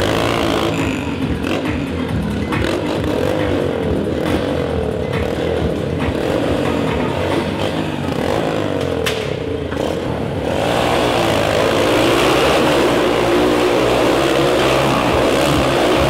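Motorcycle engines revving as the bikes ride round inside a steel-mesh Globe of Death, the engine pitch swinging up and down with each lap. About ten and a half seconds in the engines get louder and fuller.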